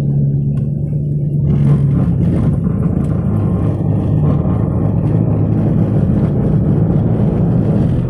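Car driving, heard from inside the cabin: a steady low engine drone under tyre and road noise, growing slightly louder about two seconds in.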